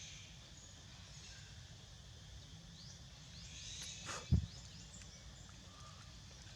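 Outdoor ambience with a steady low rumble and faint bird or insect chirping, broken about four seconds in by a brief loud low thump.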